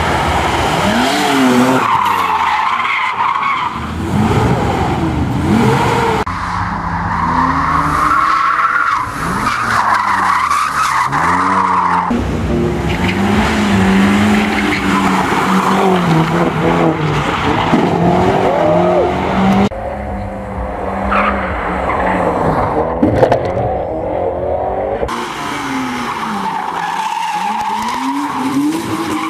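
Rally cars driven hard one after another through a tight tarmac corner: engines revving up and down as the drivers lift and accelerate, with tyres squealing. The sound cuts abruptly several times as it switches from one car's run to the next.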